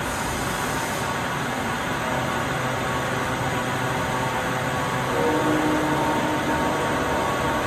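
Heavy-duty CNC lathe (Neway NL2050H) running under power: a steady mechanical hum with faint whining tones. The pitch shifts higher and the sound gets slightly louder about five seconds in.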